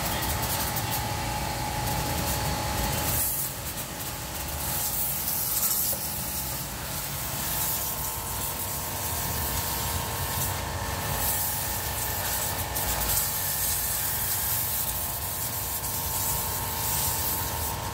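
Electric pressure washer running steadily: its motor holds an even whine under the hiss of the water jet spraying onto concrete.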